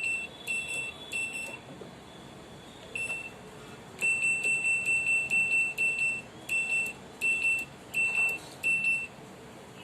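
IFB front-load washing machine's control panel beeping: short beeps at one high pitch in irregular groups, with a fast run of them in the middle. The machine's program will not change, which is put down to a damaged control board.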